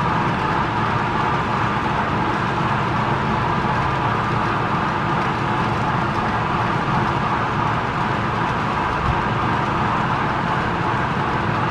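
Model freight train cars rolling along the track, their wheels making a steady, even running noise with no clicking rhythm.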